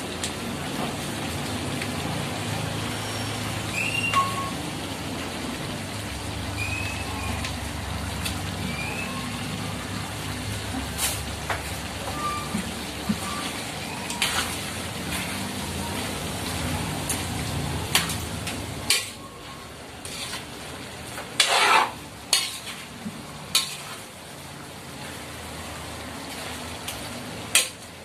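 Metal spoon stirring pork menudo in a steel wok: scraping, with sharp metal-on-metal clanks against the pan, the loudest a little past the middle, over frying food. A low rumble underneath stops about two-thirds of the way through.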